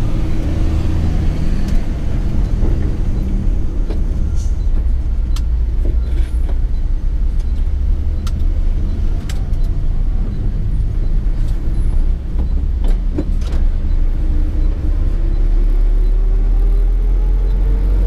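SANY 6x4 dump truck's diesel engine running, heard from inside the cab, with a few short sharp clicks and knocks. Over the last few seconds the engine note rises steadily as the truck picks up speed.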